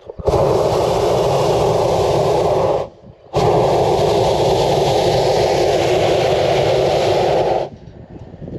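A hot-air balloon's propane burner firing in two long, loud blasts, the first about two and a half seconds and the second about four and a half, with a half-second break about three seconds in.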